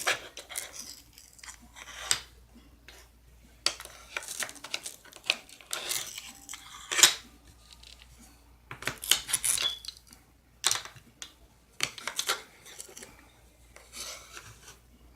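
Wooden toy cookies and a toy spatula clicking, tapping and scraping on a toy cookie sheet as the cookies are lifted off their Velcro, in irregular handling noises with a few short rasping scrapes.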